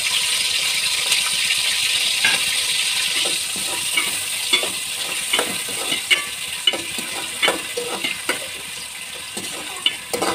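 Freshly added sliced onions sizzling in hot oil in a metal pot, with a ladle scraping and clinking against the pot as they are stirred. The clinks grow frequent from about two seconds in. The onions are being fried until they brown.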